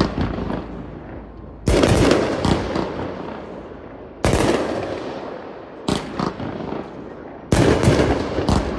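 Consumer 1.4G aerial fireworks going off: a series of sharp, loud reports one to three seconds apart, each trailing off, with three coming close together near the end.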